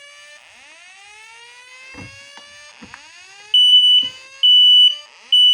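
Fire alarm speaker sounding a slow-whoop evacuation tone: a rising sweep that repeats about every two and a half seconds. A couple of light knocks come partway through, then a smoke alarm cuts in with three loud, high-pitched beeps in the temporal-three evacuation pattern.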